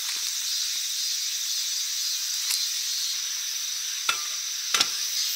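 A metal cook pot knocks twice near the end as it is set onto a folding steel camp stove, with a few lighter metal clicks before, all over a steady high hiss.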